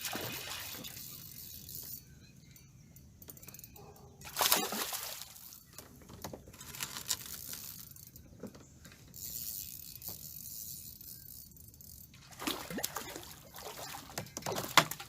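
Water splashing and trickling in several short bursts, the loudest about four and a half seconds in.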